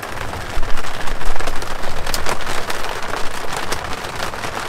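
Heavy rain drumming loudly on a teardrop camper's roof, heard from inside, a dense patter of countless drops. A low rumble swells under it about a second in and fades by two seconds.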